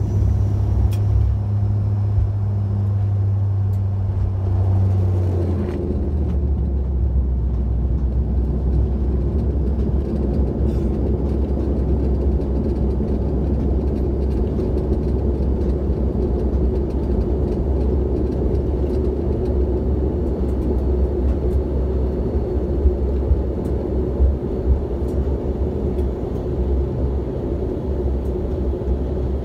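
Cabin noise of a Bombardier Dash 8 Q400 on the ground after landing: the Pratt & Whitney PW150A turboprops and propellers give a loud, steady low drone with rumble. About five seconds in the low propeller hum steps down to a lower pitch as engine power comes back, and then holds steady.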